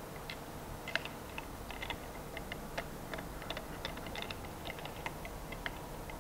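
Light, irregular metallic clicks and ticks, a few a second, as the screw holding a falling ball viscometer's metal-capped glass tube in its stand bracket is turned by hand.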